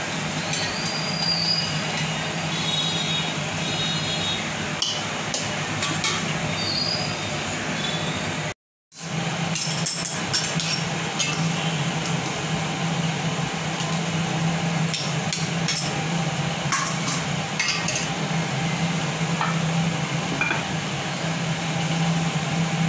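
Stainless-steel kitchen utensils clinking now and then: a spoon stirring rice in water in a steel pot, and a steel bowl and colander knocking together. Under it runs a steady low hum and hiss. The sound cuts out for a moment about nine seconds in.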